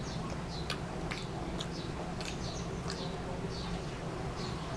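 Small bird chirping repeatedly, about two short high chirps a second, over a steady low hum. A few sharp clicks of mouth sounds from chewing a burger come in the first two seconds or so.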